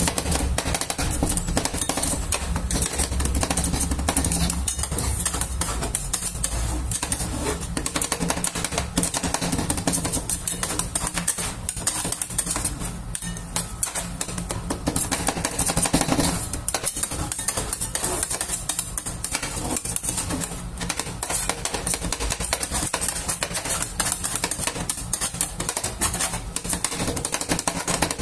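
Two metal spatulas rapidly chopping and scraping a freezing milk ice cream base on the steel cold plate of a rolled ice cream machine: a fast, continuous clatter of metal on metal.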